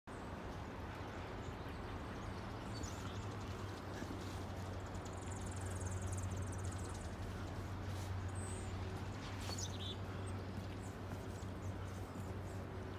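A few high, thin bird chirps and one buzzy high trill about five seconds in, over a steady low mechanical hum that is the loudest sound throughout.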